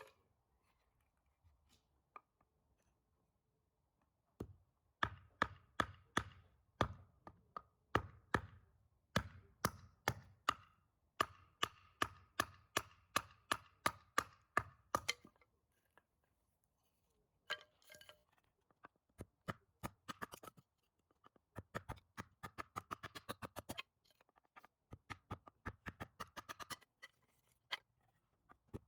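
Kitchen knife chopping on a cutting board in runs of quick, even strokes, with a short pause partway through and a faster run later on.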